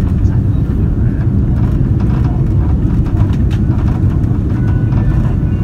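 Steady low rumble inside the cabin of an Airbus A330-343 on final approach, the sound of its Rolls-Royce Trent 700 engines and the airflow over the airframe.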